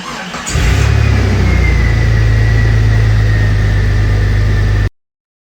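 Jeep Wrangler YJ engine starting about half a second in, then running steadily and loud through an exhaust just patched with JB Weld exhaust repair wrap. The sound cuts off abruptly near the end.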